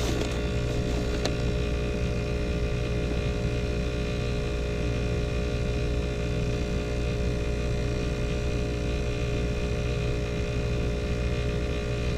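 ClimateMaster geothermal heat pump running steadily, a constant machine hum with several steady tones, with no sign of trouble in its operation.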